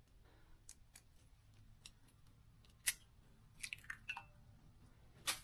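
Faint, scattered clicks and light taps of small objects being handled, with a sharper click about three seconds in and a quick cluster of clicks near four seconds.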